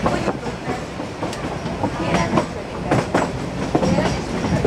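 Narrow-gauge railway carriage running along the track, heard from inside the open-sided car: the wheels clatter on the rails with irregular sharp knocks over a steady rumble.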